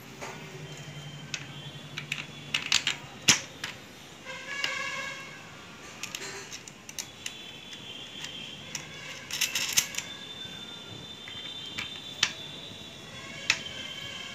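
Irregular sharp clicks and light metallic clinks of small hardware (washers, nut and bolt) being handled and fitted by hand onto a motorcycle hand-guard mount, with a few louder clicks near the middle.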